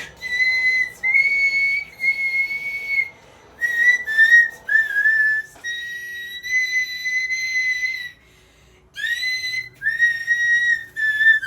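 A high, clear whistle-like tone sounding a run of held notes, each lasting half a second to two seconds with short gaps between, the pitch stepping slightly up and down from note to note.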